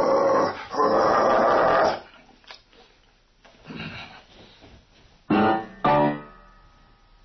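Piano accompaniment stopping on a final chord about two seconds in. After a quiet stretch come two short loud pitched sounds about half a second apart near the end.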